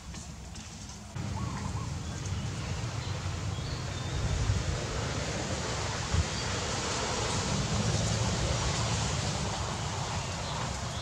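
Wind buffeting the microphone outdoors: a steady low rumble under a hiss, setting in about a second in. A short bird call comes just before it, and there is a single knock about six seconds in.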